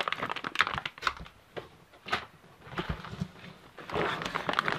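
Plastic packaging of fireworks packs crinkling and rustling as it is handled, with scattered clicks, a low knock about three seconds in, and denser crinkling near the end.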